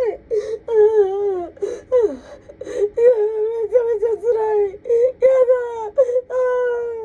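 A woman wailing and sobbing hard: long high-pitched crying that slides up and down, broken by sharp gasping breaths, with one long held wail near the end. She is breaking down in tears over her broken refrigerator.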